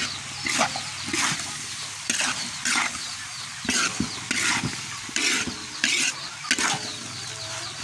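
A metal spatula scrapes and tosses long beans in balado sauce around a large metal wok. The scrapes come roughly once or twice a second, over a light sizzle.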